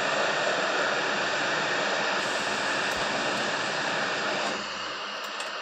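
Heat gun blowing hot air in a steady rush, softening a little about four and a half seconds in. It is melting the solder under a shorted MOSFET on a graphics card so the part can be lifted off.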